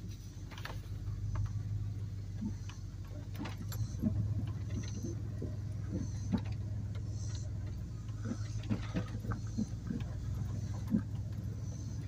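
Pickup truck running at low speed as it pulls out across a yard, heard from inside the cab: a steady low engine hum with many small clicks and rattles scattered through it.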